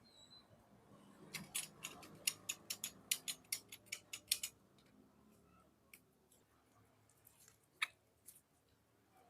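A quick run of sharp small clicks and snaps, about five a second for some three seconds, then a few single clicks.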